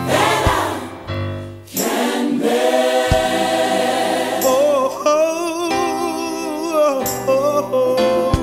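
Gospel music with choir singing: long, held, swelling notes that from about halfway on carry a wide vibrato.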